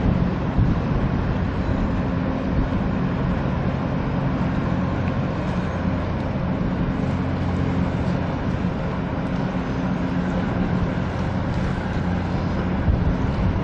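Car ferry passing close by with a steady low hum from her engines, over a haze of water and wind noise.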